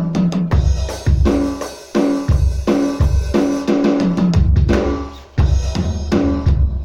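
Electronic drum kit played in a steady rock beat, with bass drum thumps, snare hits and cymbals, over pitched backing music.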